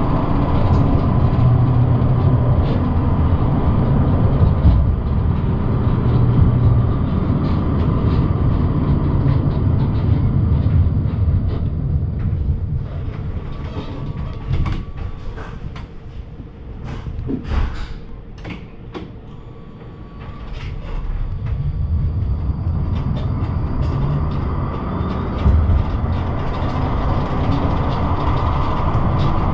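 Dresden's new NGT DXDD low-floor tram running along its line, heard from inside: a steady rumble with a whine. It grows quieter for a few seconds around the middle, with several sharp clicks, then builds up again.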